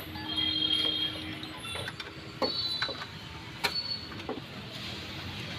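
Several sharp metallic clinks and taps, some ringing briefly, like hand tools knocking against engine parts over a low workshop hum.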